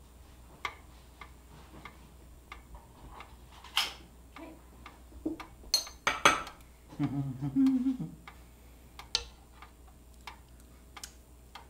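Faint, regular ticking, about one tick every 0.6 seconds, with a few sharp clinks of a spoon against a bowl and a soup pot, and a brief low hum of a man's voice about seven seconds in.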